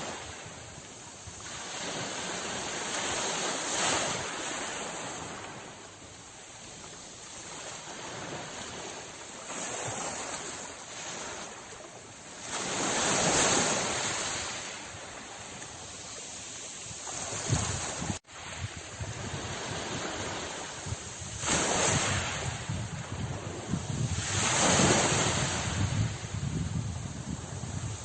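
Sea waves breaking and washing in, the surf swelling and fading every few seconds. A brief sharp dropout about 18 seconds in.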